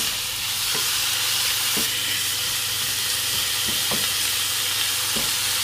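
Beef, onion and carrot sautéing in butter in a nonstick frying pan, sizzling steadily, with a few faint ticks as the pan contents are stirred.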